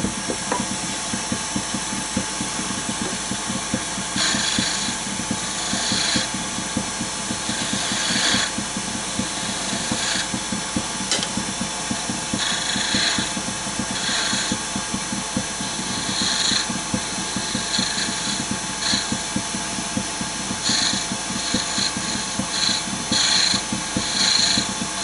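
Wood lathe running steadily while a turning tool cuts the spinning wood of a chess piece, shaping a concave neck. The hiss of the cut comes and goes in short strokes, more often near the end.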